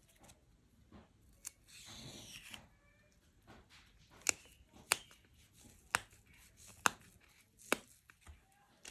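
Fresh taro leaf stalks snapped by hand into short pieces: five sharp snaps about a second apart, after a brief tearing rustle about two seconds in.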